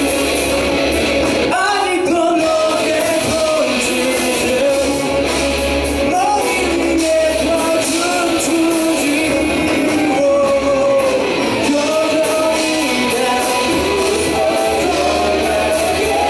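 Live rock band playing: a male lead vocal sings a melody over electric guitars, bass, keyboard and drums.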